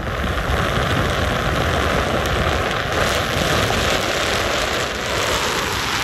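JMW AIR SENS hair dryer with a brushless (BLDC) motor running and blowing air: a steady rush of air with a faint motor whine, stepping louder at the start as the speed slider is pushed up. About five seconds in, the whine falls in pitch and the rush eases as the speed is changed.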